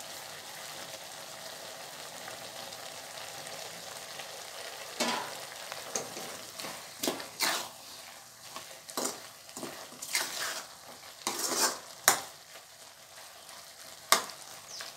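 Goat intestine frying in masala in a kadai, with a steady sizzle. From about five seconds in, a steel ladle stirs and scrapes through it in quick uneven strokes, with two sharp knocks of the ladle against the pan near the end.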